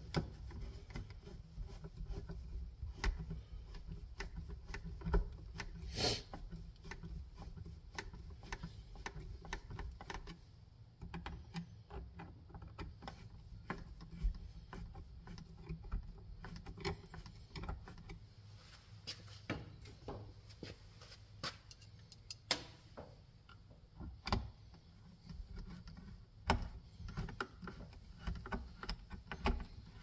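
Hand screwdriver driving the mounting screws of a 240 V dryer receptacle into its wall box: scattered small metallic clicks and scrapes at an irregular pace. A low steady hum runs underneath.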